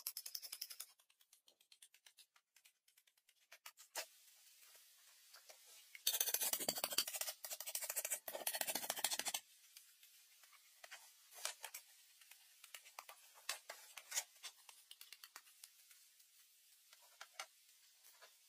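Wood being handled and worked: a quick run of light clicks at the start, a loud rasping scrape from about six to nine seconds in, then scattered small knocks and taps.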